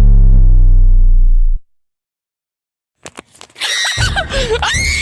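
A loud, buzzy sound effect sliding down in pitch cuts off suddenly about a second and a half in, leaving dead silence. Near the end a few clicks are followed by loud, shrill shrieking voices.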